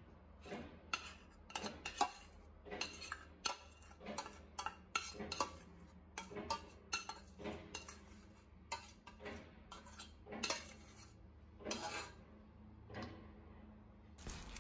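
Metal spoon scraping and clinking against a steel saucepan and mixing bowl while melted peanut butter and honey is scraped out: soft, irregular clinks and scrapes throughout.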